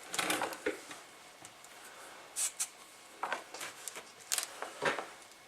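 Scattered small clicks, taps and scrapes of hand work at a workbench while solder joints on a radio circuit board are touched up.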